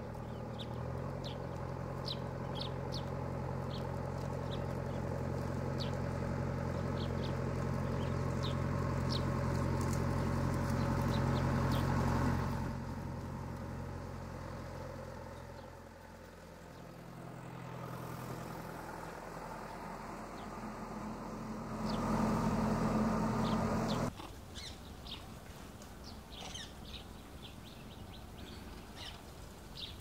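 A motor vehicle's engine running steadily, growing louder over about twelve seconds and then fading, with a second loud stretch of engine noise that cuts off abruptly two-thirds of the way through. Birds chirp in short, quick notes over it, mostly in the first half and again near the end.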